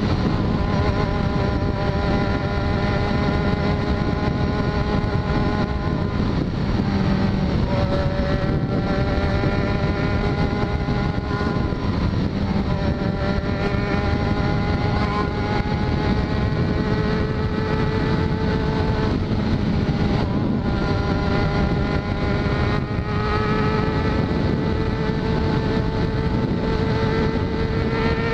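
Yamaha XJ6's 600 cc inline-four engine running at steady cruising revs, with wind rushing over the microphone. The engine note dips briefly about six seconds in, then climbs slowly over the last few seconds.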